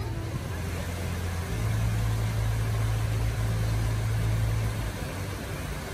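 A vehicle engine running steadily with a low hum, which grows louder about a second and a half in and eases off near the end.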